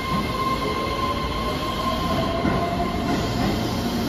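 Keihan 3000 series electric train accelerating out of an underground station: a steady rumble of wheels and running gear, with a whine from its traction motors that rises in pitch about halfway through.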